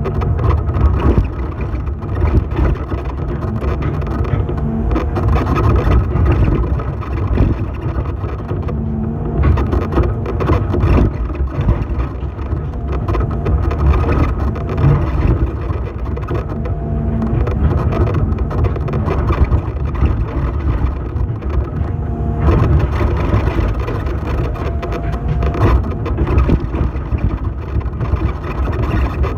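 Hydraulic excavator's diesel engine running continuously, heard from inside the operator's cab, its note wavering as the boom and bucket are worked.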